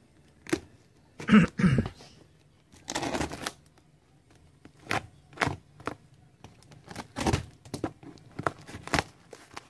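Crinkling plastic wrap and packing tape on a cardboard parcel, with short rips and knocks, as the parcel is handled and opened. The loudest bursts come a little over a second in and about three seconds in.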